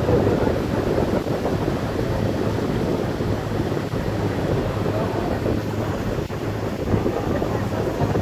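Wind buffeting the microphone on the open deck of a passenger ferry under way, over the ferry's steady low engine hum and the wash of water.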